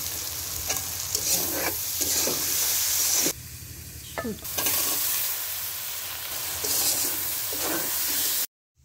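Tomatoes, green chillies and dried fish sizzling in hot oil in an aluminium karahi, stirred and scraped with a spatula. The sizzle drops for about a second partway through and cuts off suddenly shortly before the end.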